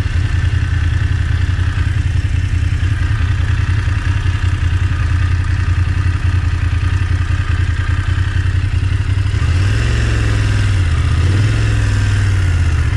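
BMW F750GS's parallel-twin engine running at low revs as the motorcycle rolls slowly, with a few small rises and falls in engine speed near the end.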